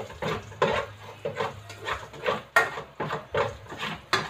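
A metal spatula scraping and stirring garlic frying in oil in an aluminium pot. Repeated strokes come a couple of times a second, with a few sharper metal clinks against the pot.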